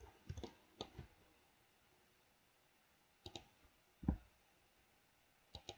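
A handful of sharp clicks from a computer mouse and keyboard, spaced irregularly, with quiet room tone between them.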